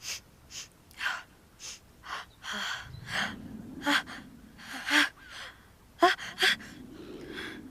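A woman gasping in short, sharp breaths about twice a second, the build-up of a sneeze brought on by flowers, with the loudest burst about three-quarters of the way through.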